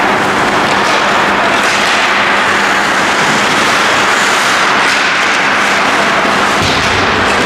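Steady, loud hiss-like din of an ice hockey rink during play, with no single event standing out.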